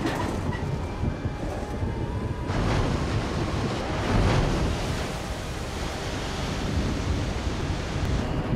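Film sound effects of a giant ocean surge: massive waves crashing and water rushing and pouring, with wind and a deep rumble. The rush grows brighter and louder about two and a half seconds in.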